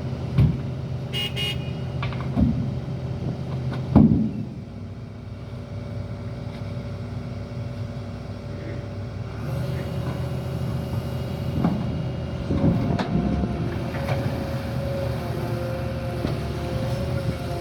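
Heavy diesel engine running steadily, with several loud metal clunks and knocks, the loudest about four seconds in. A wavering higher whine rises over it in the second half.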